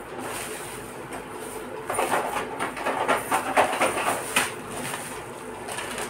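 A plastic carrier bag rustling and crinkling in a dense, irregular run for a couple of seconds, starting about two seconds in, over a steady background hiss.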